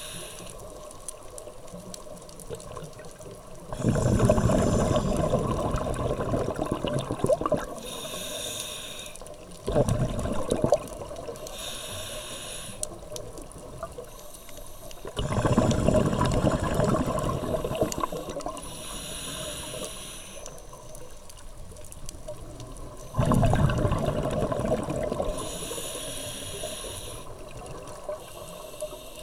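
Scuba diver breathing through a regulator underwater: short hissing inhalations through the demand valve alternate with louder rumbling bursts of exhaled bubbles, about four breaths in all.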